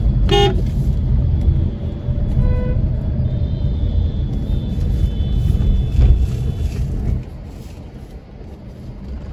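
Low rumble of road traffic heard from a moving car, with a short vehicle horn beep about half a second in and a fainter beep about two and a half seconds in. The rumble drops sharply about seven seconds in.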